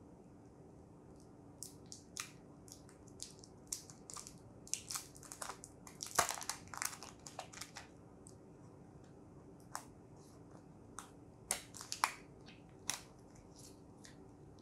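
Thin plastic protective film being peeled off a new smartphone, crinkling and crackling in a quick run of sharp crackles that is thickest around the middle, with a few more crackles near the end.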